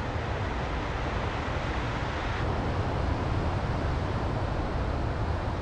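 Wind buffeting the microphone in a steady low rumble, over the wash of surf breaking on the beach. The higher hiss drops a little about two and a half seconds in.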